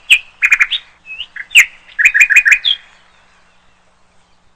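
Small bird chirping: short, high chirps and quick runs of three or four notes that stop a little under three seconds in.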